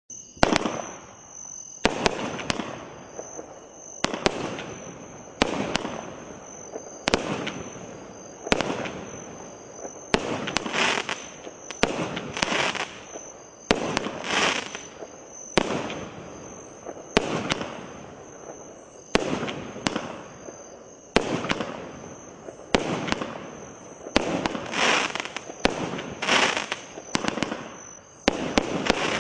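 Consumer firework cake "Brain Sneeze" firing shot after shot, about one every second and a half and sometimes two close together. Each shot is a sharp report followed by about a second of fading noise.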